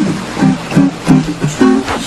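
Background music: a light, bouncy tune of short plucked-string notes.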